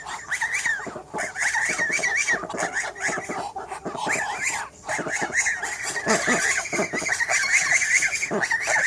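A flock of chickens calling, with many short overlapping calls chattering continuously and a few lower clucks mixed in.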